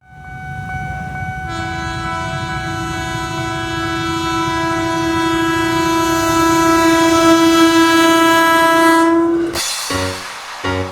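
Train horn sounding one long two-tone blast, the second, lower note joining about a second and a half in, over the low rumble of the train on the rails. The blast is the long S35 horn signal. The horn stops near the end and piano music starts.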